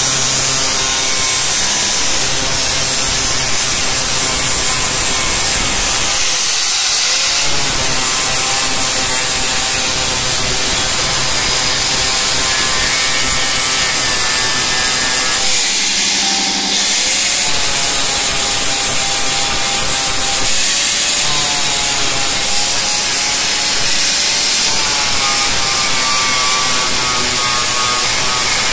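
Electric angle grinder with a flap disc running continuously while grinding the steel knife blank cut from a circular saw blade. Its motor dips in pitch briefly twice, around six and sixteen seconds in, then comes back up.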